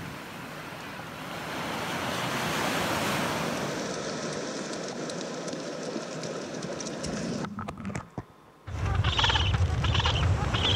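Surf washing onto a pebble beach, a steady rushing hiss. It drops out briefly about eight seconds in, then wind rumbles on the microphone with a few short high-pitched sounds over it.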